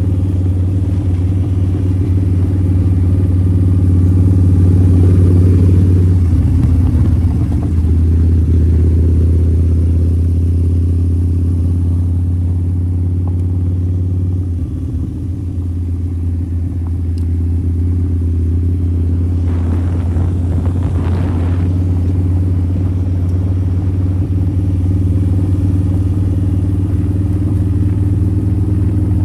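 Harley-Davidson V-Rod's 1250 cc liquid-cooled V-twin engine running steadily under way, heard from the rider's seat. The engine note shifts about six seconds in and again around fifteen seconds, where it briefly drops, and a short rush of noise comes through around twenty seconds in.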